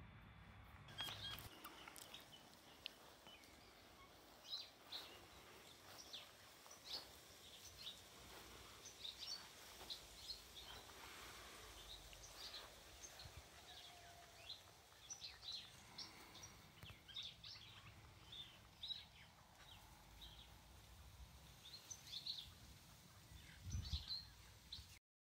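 Faint outdoor background with many short bird chirps scattered throughout, and a soft low bump near the end.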